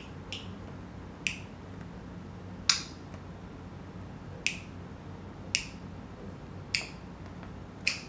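Pet budgerigar making sharp clicking noises in a loose beat while it bobs and dances, seven clicks about a second apart. The loudest and longest comes about two and a half seconds in.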